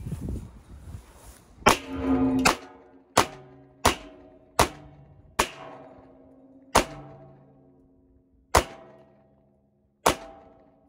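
Eight shots from a 9mm Kel-Tec P11 pistol at an uneven pace, roughly one a second, each followed by a metallic ring that fades as the bullet holes the steel drum.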